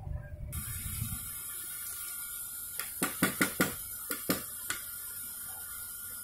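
About eight light, sharp metal-on-metal taps and clinks within two seconds, from a steel timing gear and drift being seated on a motorcycle crankshaft. A steady faint hiss runs underneath.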